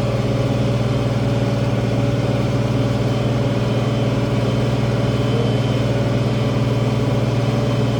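International 1566 tractor's six-cylinder turbocharged diesel engine running at a steady speed, a loud, even drone with no change in pitch.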